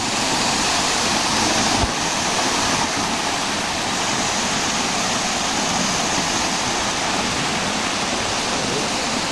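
Shallow river water spilling over a low stone weir in small falls and running over rock shelves: a steady rush.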